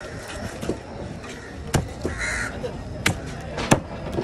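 Heavy fish knife chopping into a mackerel tuna on a wooden board: three sharp knocks of the blade striking through into the wood. A crow caws once between the first two chops.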